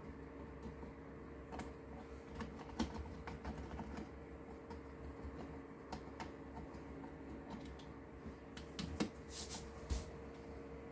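Keys of a Soar RGX-K2 gaming keyboard being pressed: scattered, irregular clicks, with a short cluster of presses near the end.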